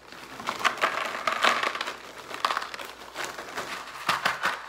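Crinkly plastic snack bag being shaken and tipped as crunchy cornmeal bacon-cheddar fries pour out and rattle into a paper bowl: irregular crackling with sharp clicks throughout.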